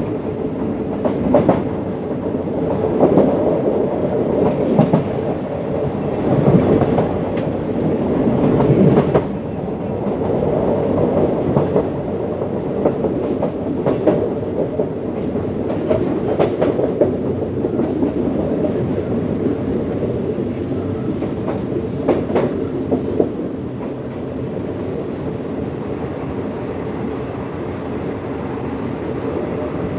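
Passenger train running on jointed track, heard from a carriage window: a steady rumble with the wheels clattering over rail joints and points every few seconds. The clatter thins out in the last few seconds as the train slows into a station.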